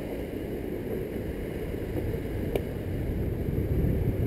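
Wind buffeting the microphone over a steady low rumble from moving fast along a dirt forest trail, with one sharp click about two and a half seconds in.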